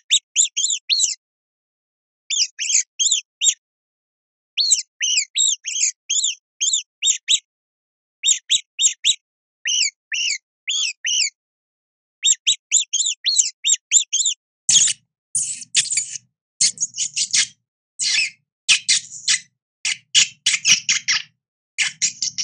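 Rodent squeaking: quick runs of short, high, chirp-like squeaks in clusters separated by brief pauses. About fifteen seconds in, the squeaks turn harsher and rougher, with a low buzzy tone under each one.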